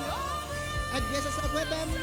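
Background music with a steady low drum beat under held, wavering melody notes.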